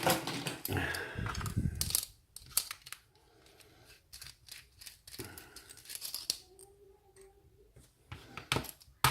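Metallic clicks and scrapes of a padlock and lock tools being handled, a louder stretch of rustling and scraping in the first two seconds, then scattered single clicks.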